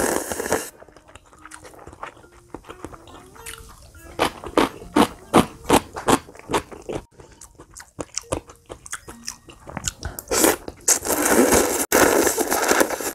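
Close-miked eating: thin wheat noodles are slurped from a bowl of pig's trotter soup, with a brief slurp at the start and a longer one about ten seconds in. In between comes chewing with a run of quick clicking mouth sounds.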